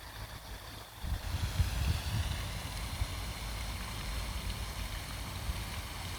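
Moving boat on a lake: gusty wind buffeting the microphone over a steady rush of water, louder from about a second in.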